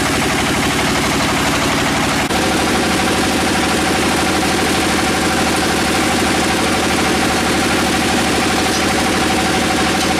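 Sawmill machinery running with a steady, fast-pulsing engine drone. About two seconds in there is a brief dip, and a steady whine joins and holds.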